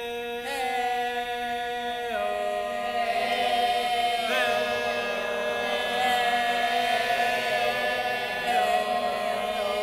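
Performers' voices singing a wordless chant in long held notes, shifting pitch a few times.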